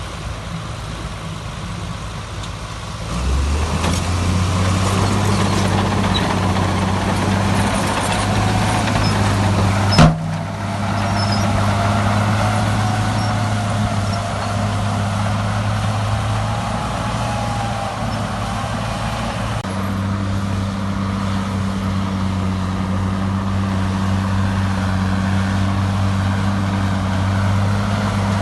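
Heavy diesel engine of an earthmoving machine running steadily. It grows louder about three seconds in as it takes load, with a faint wavering whine over it. A single sharp bang comes about ten seconds in.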